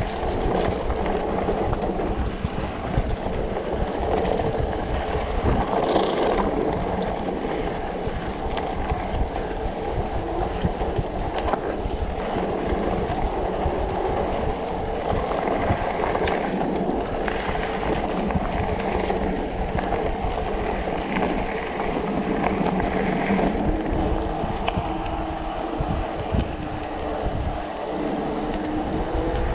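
Riding noise of a Specialized Turbo Levo electric mountain bike on rough forest singletrack: the motor's whine rising and falling, the bike rattling and knocking over the ground, and wind rumble on the microphone.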